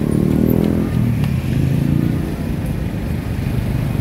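Motorbike engine running close by, its pitch shifting over the first two seconds, over steady street noise.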